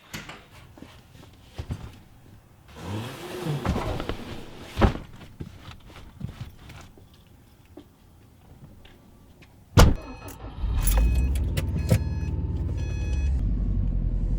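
Rustling and clicks, then a car door shut with a bang. Moments later the engine of a 2008 Subaru Impreza WRX STI (a turbocharged flat-four) starts and runs at a steady low idle, with a repeating electronic chime ringing over it for a few seconds.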